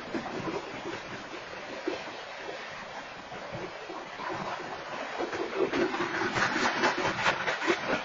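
Freight train of coal hopper cars rolling past: a steady rumble and hiss of steel wheels on the rails, with a quick run of clattering knocks growing louder in the second half.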